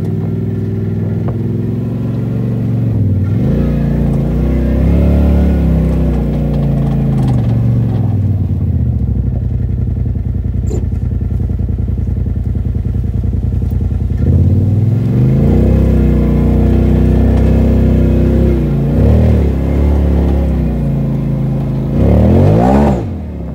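2017 Polaris RZR XP4 Turbo's turbocharged twin-cylinder engine, breathing through an RJWC APX/AL aftermarket exhaust on the stock tune, pulling away and driving slowly: the revs rise and fall several times, with a steady low drone in between and one quick rev near the end.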